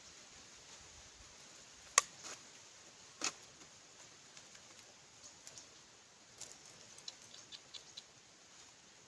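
Bamboo trap being handled: a sharp knock about two seconds in and another a little over a second later, then a run of small clicks and short high chirps.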